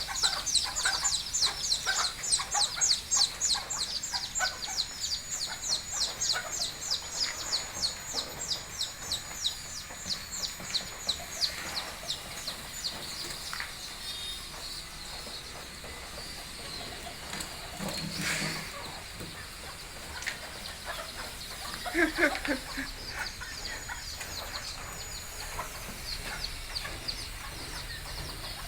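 Bantam chickens clucking and chirping. A fast run of high chirps fills the first dozen seconds and then fades, and a louder call comes a little after twenty seconds.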